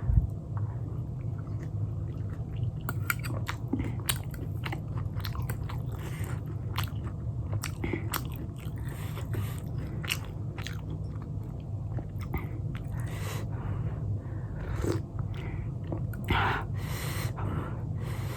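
Close-miked biting and chewing of pan-fried momos soaked in chutney, with frequent short wet clicks and smacks of the mouth. A steady low hum runs underneath.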